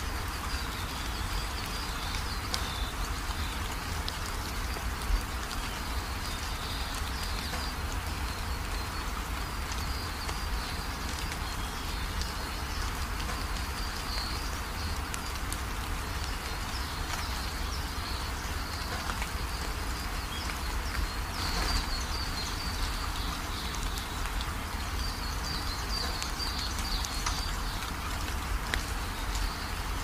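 Steady rain falling, with many individual drops ticking through it and a high chirping that comes and goes in the background.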